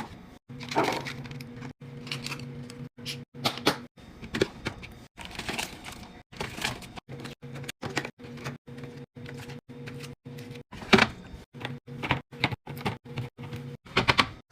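Food packages and containers being handled and set down while a fridge is restocked: a quick run of clicks, knocks and rustles, broken up by many short silences, over a faint steady low hum.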